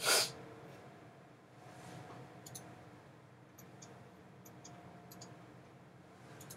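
A short, loud burst of noise at the start, then a handful of faint, light clicks scattered over low room noise.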